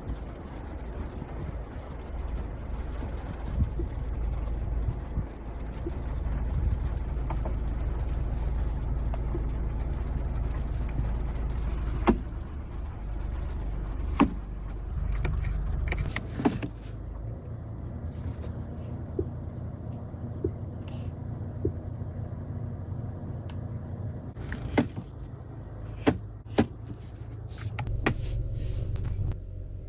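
Honda car running, a steady low rumble that drops to a quieter level about halfway through, with scattered sharp clicks and knocks.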